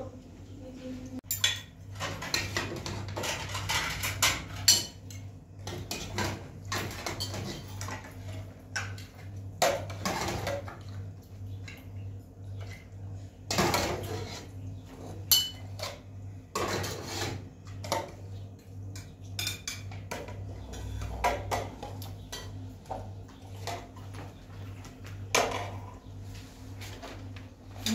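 Metal spoons and utensils clinking and scraping against metal plates and a cooking pot, with irregular sharp clicks and knocks throughout.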